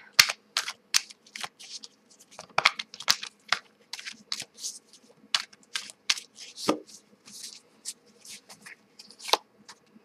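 A deck of tarot cards being shuffled by hand, with the cards slapping and sliding against each other in quick, irregular taps.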